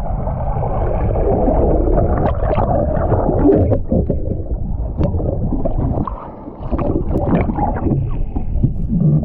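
Water rushing and splashing under a heavy, steady rumble as a rider is towed behind a motorboat. The loudness dips briefly about two-thirds of the way through.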